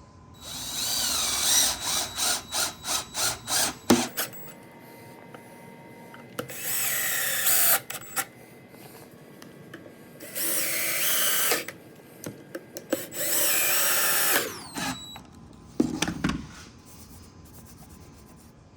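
Handheld power drill driving screws into pre-drilled holes in shelf boards: a string of quick trigger blips at first, then three separate runs of about a second each, the motor pitch gliding as each screw seats. A short thump near the end.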